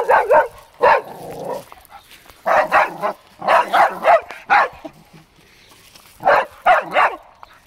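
A dog barking in quick bursts of two to four sharp barks, five times over, with short pauses between the bursts.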